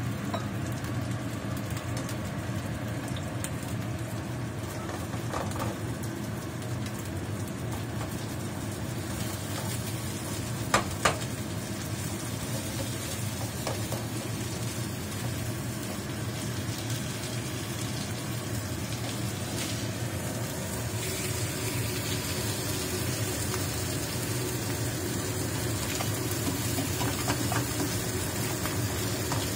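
Threadfin fish pan-frying in a nonstick pan: a steady sizzle over a low hum, with two sharp clicks about 11 seconds in as the fish are turned with a spatula and wooden spoon. The sizzle gets brighter about two-thirds of the way through.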